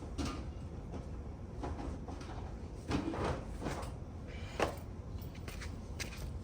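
A few irregular light knocks and rustles of things being handled and set down, the loudest about three seconds in and again near five seconds, over a steady low rumble.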